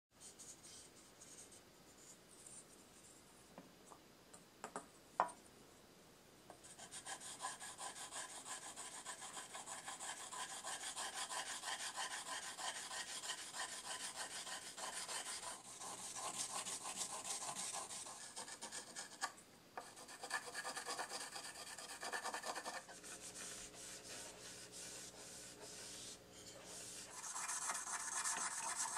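A block of polishing charcoal rubbed back and forth over a wet, urushi-lacquered wooden tanto mount: steady gritty scraping in quick strokes, wet-sanding the cured lacquer coat smooth before the next layer. The rubbing starts about seven seconds in, after a few light clicks and one sharp click, and pauses briefly twice.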